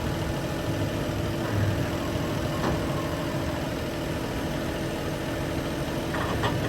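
Tractor engine idling steadily, a low, even hum. A few light clicks sound over it, about one and a half, two and a half and six seconds in.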